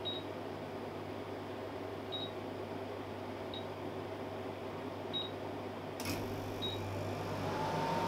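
Matsui MPA9KWR portable air conditioner giving five short high beeps, a second or two apart, each one a button press made remotely over wifi to step its set temperature. About six seconds in there is a sharp click, then a hum that rises in pitch and settles into a steady tone as a motor in the unit starts.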